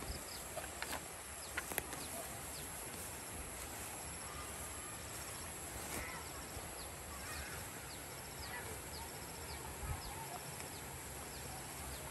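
Rural outdoor ambience: a steady high-pitched insect drone, with short high chirps repeating every second or so. A few sharp clicks sound in the first two seconds.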